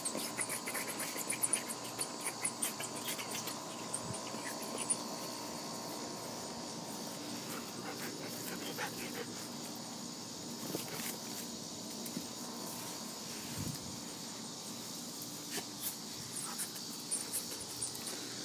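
A steady chorus of insects, crickets or similar, chirring in the background, with scattered short clicks and rustles, most of them in the first five seconds.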